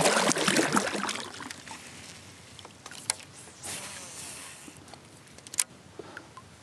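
Water splashing beside a kayak, loudest in the first second. Then quieter lapping, a short rush of noise about four seconds in, and two sharp clicks.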